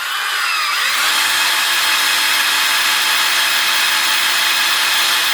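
Electric drill spinning an engine's oil pump through a priming tool, pushing oil through a rebuilt flat-tappet V engine to build oil pressure before first start. The drill's whine shifts in pitch during the first second as it comes up to speed against the pump, then runs steady.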